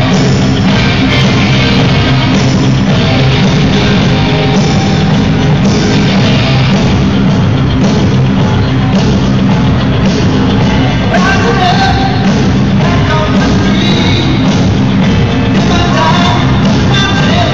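Loud rock song with singing played over an ice hockey arena's PA system, heard from the stands.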